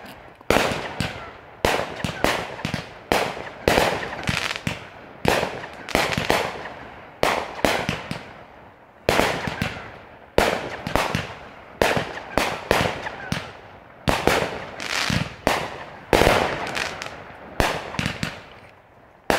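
Two consumer fireworks cakes, Straight Jacket and Hooked, firing together through a steady run of sharp shots and mid-air bursts, about one to two a second and sometimes in quick clusters. Each one trails off before the next.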